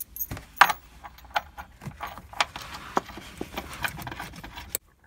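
Small metal hardware clinking and tapping as an eye bolt with its washers is handled and fitted into a seat-belt anchor point: an irregular run of short, sharp clicks, the sharpest about half a second in.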